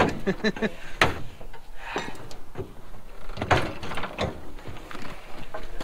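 A few sharp knocks and clunks, irregularly spaced, with brief faint talk in between.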